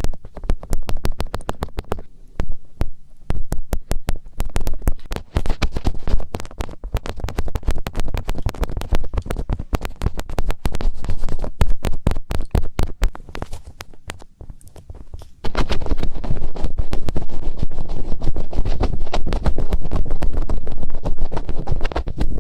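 Fingertips rubbing and scratching right on a microphone's ear in finger ear-cleaning ASMR: a dense run of crackling scratches over a low rumble. About two-thirds of the way in, the rubbing gets louder and fuller.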